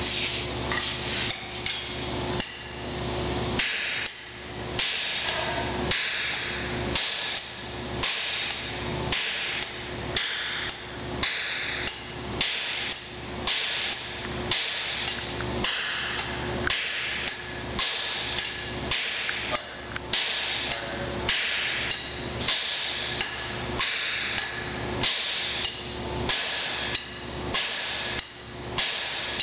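Two blacksmiths hammering in turn on an anvil, sledgehammer and hand hammer blows tapering a large bar of hot stock. The blows come in a steady rhythm, about one heavy blow a second with lighter strikes between, over a faint steady hum.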